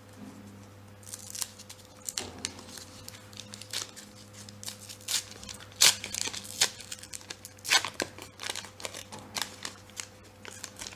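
Foil wrapper of a 1990-91 Upper Deck hockey card pack being torn open by hand: irregular crinkling and crackling with sharp tearing rips, the loudest about six seconds in and again near eight seconds.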